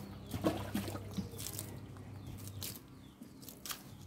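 Water trickling from a small hose nozzle as a cow's hoof is rinsed, with a few sharp clicks. A low steady hum fades out about two-thirds of the way through.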